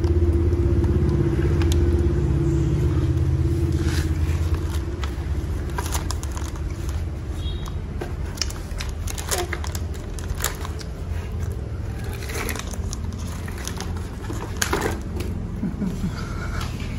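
Plastic snack wrapper crinkling and rustling in small hands, with scattered short crackles, over a steady low rumble.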